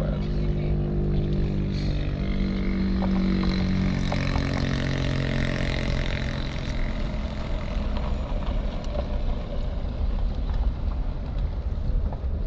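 Car engine running, heard from inside the cabin: a steady low hum and rumble whose tones ease off a little past halfway.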